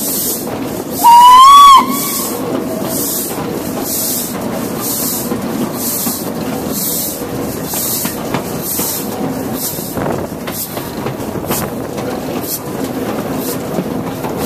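A steam locomotive whistle, one short, loud blast about a second in, sliding slightly up and back down in pitch; the whistle is Morayshire's, an LNER D49 class 4-4-0. Under it and after it comes the steady running noise of the train, with rhythmic steam exhaust chuffs a little under two a second and a few sharp clicks from the wheels.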